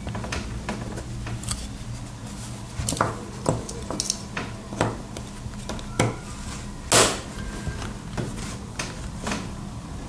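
Irregular sharp clicks and taps of small hard objects as an inline RJ45 Ethernet coupler's plastic housing is handled and worked on, the loudest about seven seconds in, over a low steady hum.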